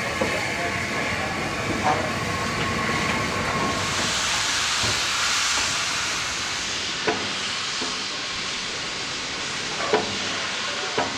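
Southern Railway Schools class 4-4-0 steam locomotive Repton on the move, steam hissing loudly from about four seconds in, with a few sharp metallic clanks.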